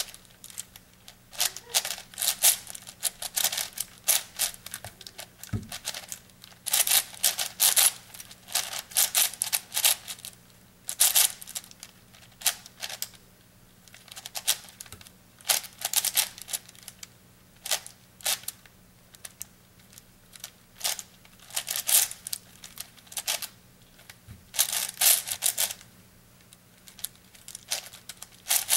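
Plastic layers of an 8x8 puzzle cube clacking as they are turned by hand, in quick runs of clicks broken by short pauses.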